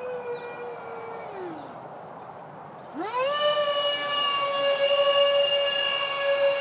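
Electric ducted-fan jet of a Freewing Su-35 RC model whining overhead. The pitch sinks and fades as the throttle comes back in the first two seconds, then about three seconds in it climbs sharply and holds a steady, louder whine as power comes back on.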